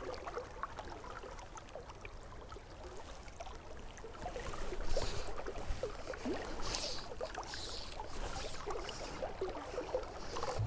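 Quiet river water lapping and flowing at the bank, with scattered small ticks and a few brief swishes from fly line being handled and stripped by hand partway through.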